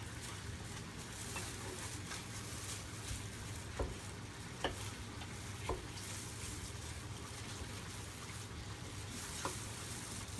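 Tuna pieces frying in oil in a pan, with a steady sizzle. A few light clicks come through now and then.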